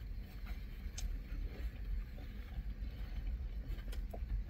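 Steady low rumble of a car cabin, with faint clicks and crinkles of burger wrapper paper and chewing, and a sharper tick about a second in.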